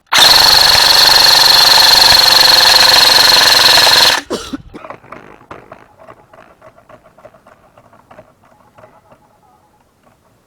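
Airsoft electric gun firing one long full-auto burst close to the microphone: a very loud rapid rattle with a steady high whine, starting abruptly and cutting off after about four seconds. Faint scattered clicks follow.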